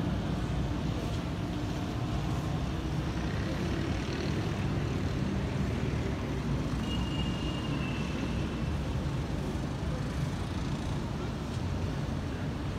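Steady low rumble of city traffic, with a faint thin high-pitched tone lasting about a second and a half around the middle.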